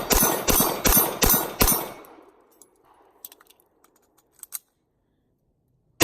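Glock 19 pistol with a Shadow Systems SS9C slide firing a fast string of 9mm shots, about two and a half a second, stopping about two seconds in. A few faint clinks follow, and a single shot comes right at the end.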